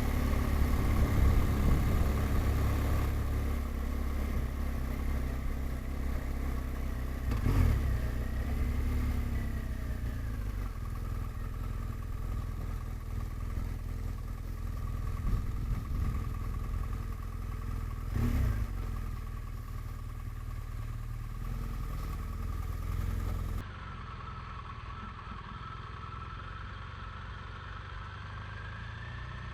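BMW R1200GS flat-twin engine running steadily while riding at low speed, with two short thumps, about a quarter and two-thirds of the way through. A little after three-quarters of the way through the sound drops abruptly quieter and duller.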